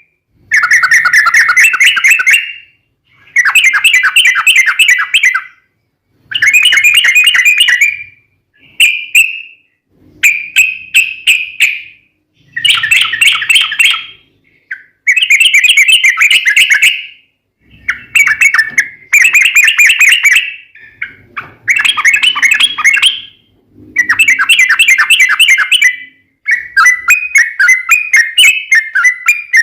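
Yellow-vented bulbul (trucukan) singing its long rapid 'ropel' song: about a dozen bursts of quick chattering notes, each about two seconds with short pauses between. Near the end the notes run on faster without a break.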